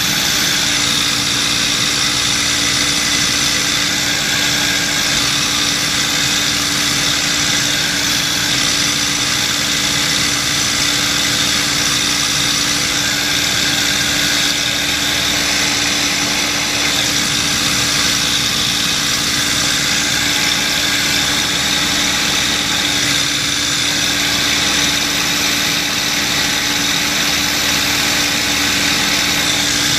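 P-51D Mustang's Packard Merlin V-12 engine running steadily at cruise power in flight, heard from a camera mounted outside the cockpit under a constant rush of airflow.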